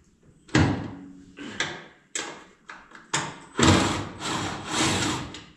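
Hand work on parts: a few short scrapes and knocks, then a longer scraping stretch of about two seconds near the end.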